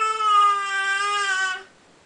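A baby's voice: one long, steady, whining cry held on a single pitch that sags slightly before it stops about a second and a half in.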